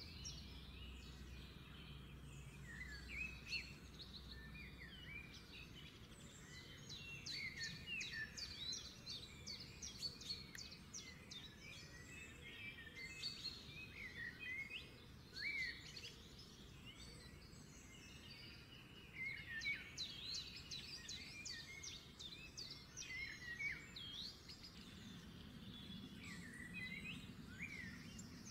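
Faint chorus of many small birds chirping, a dense run of short, quick calls that sweep up and down in pitch.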